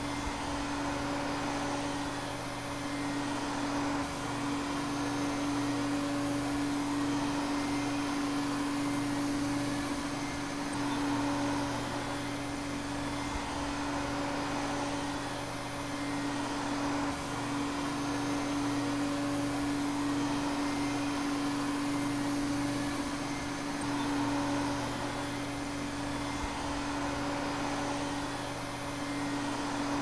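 Vacuum cleaner running steadily: a constant motor hum with one strong steady tone under an airy rushing hiss, swelling and easing slightly every few seconds.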